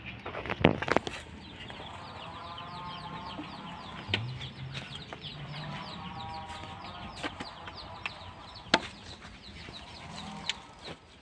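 Chickens calling: a rapid run of short, high, falling peeps throughout, with two longer, lower calls. A few sharp knocks are heard.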